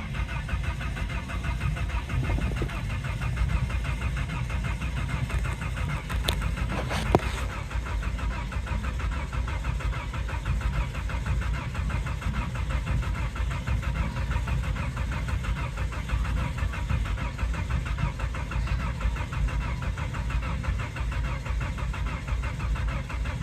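Volvo 850's inline five-cylinder engine cranking on the starter motor in a long, even stretch without catching: a no-start. There is a short knock about seven seconds in.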